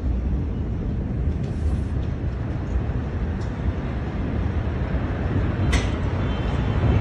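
Low, steady rumble in the aftermath of a huge explosion, as the smoke cloud billows up, with a few faint clicks and a sharper knock about six seconds in.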